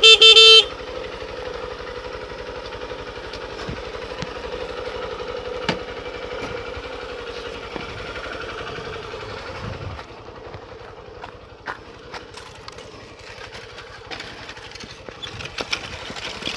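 Single-cylinder engine of a Honda Bros motorcycle idling steadily, with a loud short beep at the very start. The engine sound drops away about ten seconds in.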